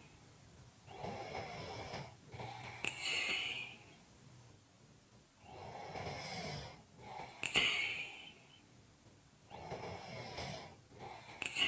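A person snoring, with slow, heavy breaths about one every four to five seconds, each building to a loud rasp.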